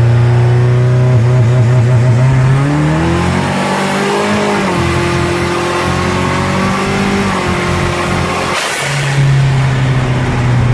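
Car engine idling, then revved up about three seconds in and held at raised revs before dropping back to idle near the end. A faint high whine rides along with the raised revs and cuts off as they fall. The engine is running after its misfire was fixed.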